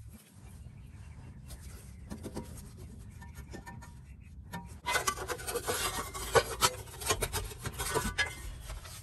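Gloved hand rubbing and scraping against the greasy steering rack and its rubber boot, a scratchy rasp that gets louder and busier, with sharp clicks, from about five seconds in.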